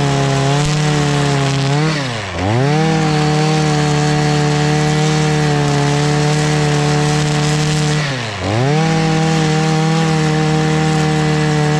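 A small motor or engine running at a steady pitch. Twice, about two seconds in and again about eight seconds in, its pitch and loudness drop sharply and climb back within half a second.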